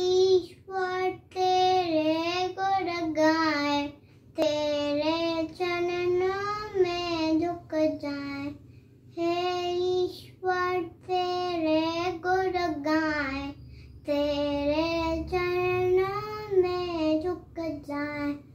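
A four-year-old boy singing a Hindi prayer solo and unaccompanied, in sung phrases with short pauses for breath between them.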